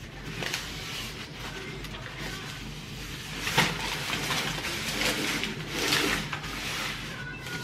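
Paper towel rubbing around the inside wall of a metal springform cake pan as it is greased, in repeated wiping strokes, the loudest about three and a half seconds in.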